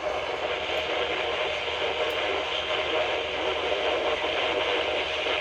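FM radio receiver hissing with steady static where the station's signal has dropped out: the WBKR FM transmitter has failed.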